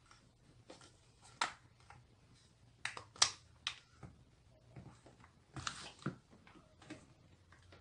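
Scattered sharp clicks and knocks of hard plastic as a hot glue gun's housing halves are handled and pressed together during reassembly, the loudest click about three seconds in, with a short scraping rustle about six seconds in.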